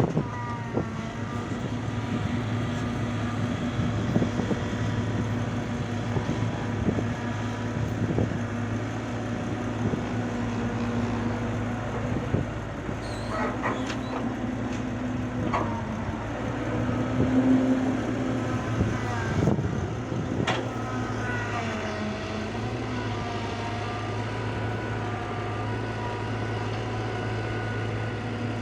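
Heavy diesel engine running steadily under load, with scattered knocks and a few brief squeals over the hum.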